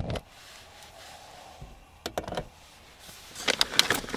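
A portable gas camp stove's burner is lit with a sharp click, then the gas flame hisses steadily under the skillet. A few clicks come about two seconds in, and a dense run of crackling clicks starts near the end.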